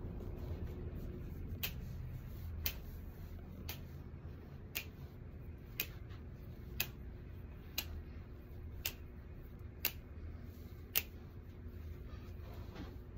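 Short sharp ticks about once a second, evenly spaced, over a low steady hum.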